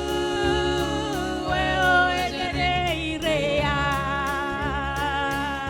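Gospel song: a voice holds long, wavering sung notes over an instrumental backing with bass and a steady drum beat.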